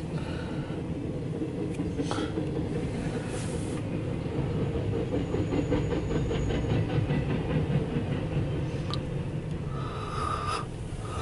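CSX intermodal freight train rolling past, heard from inside a vehicle's cab: a steady rumble of container well cars on the rails, with a run of rapid, evenly spaced wheel clicks over rail joints midway.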